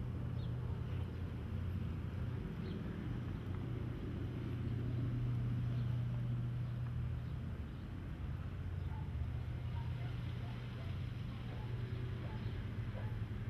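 A steady low mechanical hum, like a running engine, swelling a little midway.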